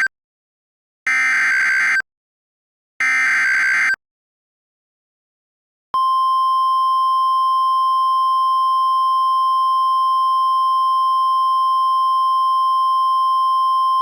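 Emergency alert header from NOAA Weather Radio for a tornado emergency: short bursts of warbling SAME data tones, the end of one and then two more about a second apart. After a two-second gap, a steady high-pitched warning alarm tone begins about six seconds in.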